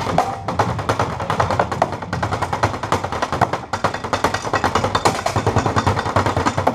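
Fast drumming with sticks on a drum kit built into a plastic wheelie bin, with a mounted cymbal: a dense, even run of sharp strikes, many a second.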